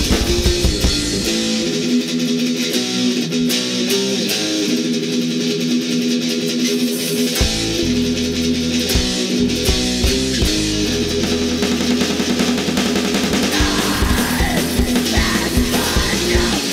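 Instrumental passage of a melodic heavy metal song: a guitar plays a melodic riff with little below it. About seven seconds in, bass and drums come back in under it.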